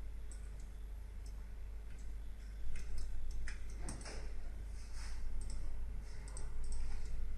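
Computer mouse clicking now and then in irregular short clicks, over a steady low electrical hum.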